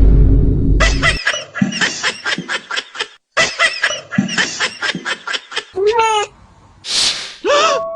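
Cartoon meme sound effects: a loud noisy blast ends about a second in, then rapid high-pitched cackling laughter in two long runs, then a short swooping squeak and two quick whooshes near the end.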